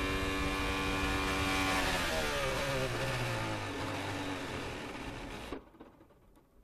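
Formula 1 car's Ferrari 1.6-litre turbocharged V6, heard onboard, holds a steady pitch and then winds down with a falling pitch, fading until it cuts off suddenly about five and a half seconds in. The engine is failing: it is losing power and dying.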